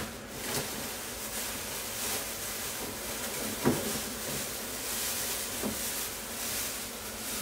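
Spicy tomato and mussel sauce bubbling in a pan over a high gas flame as it reduces: a steady hiss with a few sharp pops, the loudest about halfway through.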